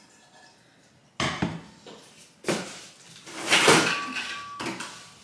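Caraway ceramic-coated cookware being handled: a pot and lid knocked down onto the stovetop a few times, with a louder clatter about three and a half seconds in and a short ringing note near the end.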